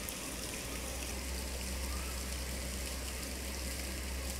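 Steady rush of water from a small waterfall spilling down a rock face into a pool, with a low steady rumble underneath.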